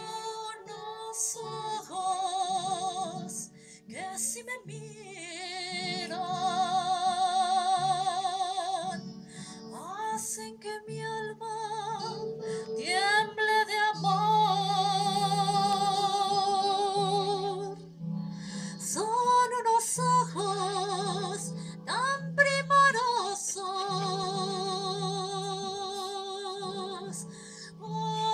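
A woman singing a melody with wide vibrato into a microphone, amplified through a PA speaker, over an accompaniment of long-held low notes.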